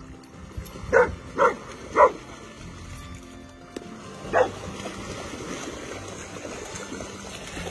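A dog barking four times, three short barks close together near the start and one more midway, over a steady wash of splashing as dogs swim after a flirt-pole lure.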